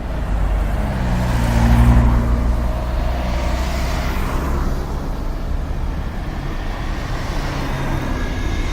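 Bus engine running with a low rumble, swelling about two seconds in and then running on steadily.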